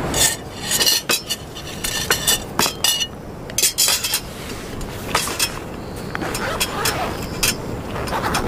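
Clinks and knocks of camp dishes and cutlery being handled: a fork against a stainless steel plate, a bowl moved on a wooden board. A quick run of sharp clinks in the first few seconds, then sparser ones.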